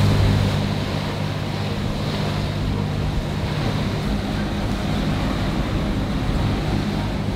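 Water rushing and splashing at the bow of a trawler under way through a choppy swell, with wind buffeting the microphone.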